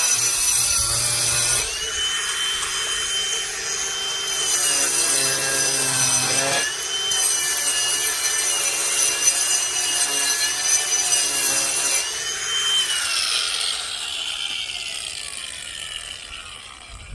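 Ryobi cordless brushless angle grinder with a diamond blade grinding down a raised concrete slab: a high motor whine with gritty scraping, the pitch dipping briefly as the blade bites. Near the end the pitch falls steadily as the grinder is eased off and winds down.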